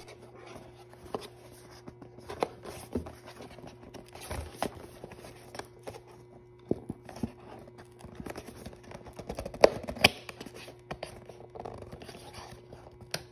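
Fingers scratching and picking at the tabs and flap of a cardboard blind box to open it, with scattered small scrapes and sharp taps.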